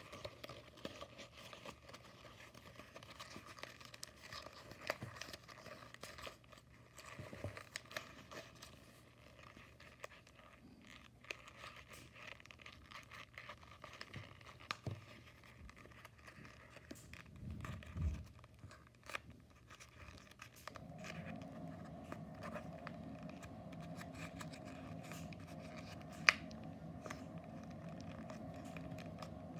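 White paper of an origami cube flasher being folded and creased by hand: soft crinkling and rustling with many small ticks. A steady hum comes in about two-thirds of the way through, and there is one sharp tick near the end.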